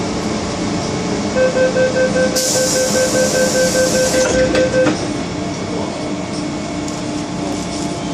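MTR M-Train passenger door warning beeping as the doors open at a station: a rapid tone, about three to four beeps a second, for about three and a half seconds, with a hiss in the middle of it. The train interior hums steadily underneath.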